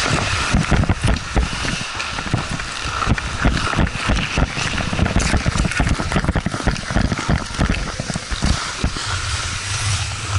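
Ice hockey skates scraping and carving on the ice as the player wearing the camera skates and handles the puck. Rapid, irregular knocks and rumbles from movement and wind on the body-worn microphone sit over a steady hiss.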